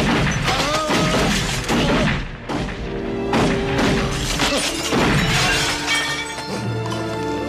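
A run of gunshots with glass and crockery shattering on a table, mixed over dramatic film music. The shots and breaking come in a string of sharp cracks for about six seconds, then stop and held music notes carry on.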